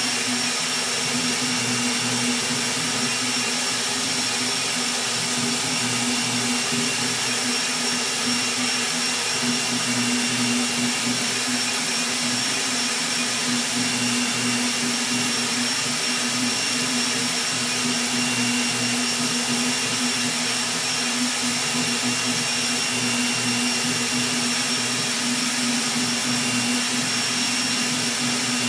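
Rat Rig V-Core 3 3D printer running mid-print at high speed: a steady rushing hiss from its blower part-cooling fan, a Delta PFB0412EN-E at 80% PWM, over a steady low hum and a faint high whine.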